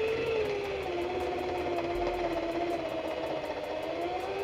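Corded electric drill running steadily as it bores into wood, its motor pitch wavering slightly under load.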